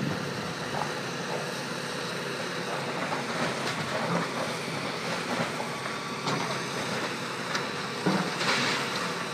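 Hitachi tracked excavator demolishing a building: a steady diesel engine hum with occasional sharp knocks and clatters of debris, and a louder burst of crashing noise about eight seconds in.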